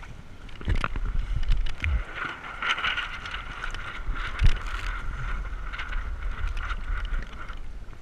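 Wind buffeting the microphone and water rushing and splashing along the hull of a Hobie Tandem Island sailing kayak under way, with one sharp thump about halfway through.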